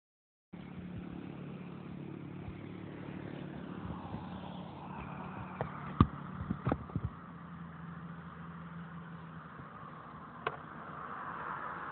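A motor vehicle engine running steadily, dying away about nine seconds in. A sharp knock about six seconds in, the loudest sound, is followed by a few lighter knocks, with one more near the end.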